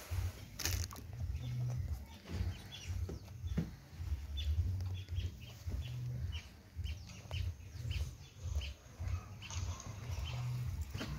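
Domestic hen making short, faint high peeps about twice a second, over an uneven low rumble on the microphone.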